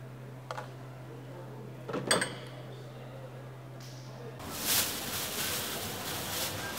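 A low steady hum with a small click and then a sharp clatter of knocks about two seconds in; a little past halfway the hum cuts off and a black plastic trash-can liner rustles and crinkles as gloved hands work it.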